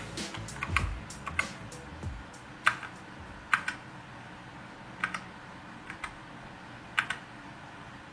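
Keys pressed one at a time on a Vortex mechanical keyboard fitted with PBT keycaps: sparse, irregular clacks. Faint background music fades out in the first two seconds.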